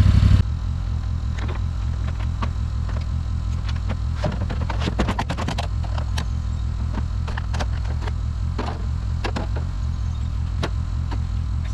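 Small engine of a trenching machine running steadily with a low, even rumble. Scattered sharp clicks and knocks are heard over it.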